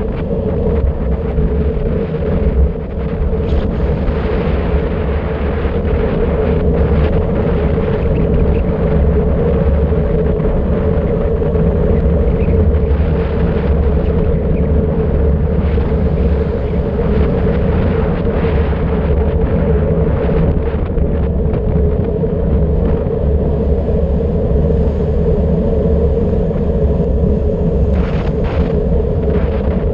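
Wind rumbling steadily over the microphone of an action camera on a bicycle descending at about 50 km/h, with tyre noise on asphalt.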